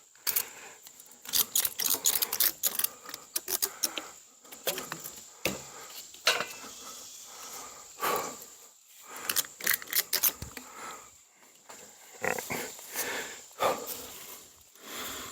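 Rapid clicking and rattling from handling a metal ladder stand against a tree, densest in the first few seconds, with heavy breaths in between.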